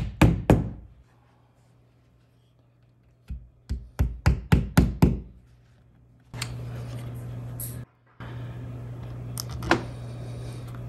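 Hammer tapping a plastic wall anchor into a freshly made hole in the wall: a few quick knocks at the start, then a second run of about eight quick taps a few seconds in. A steady low hum follows from about six seconds in.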